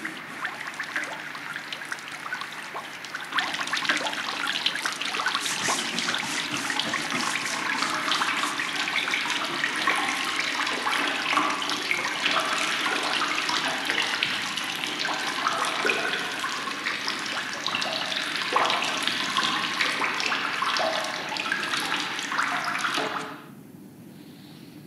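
Running water streaming and splashing over a person's head and face, a steady rush that grows louder about three seconds in and cuts off suddenly near the end.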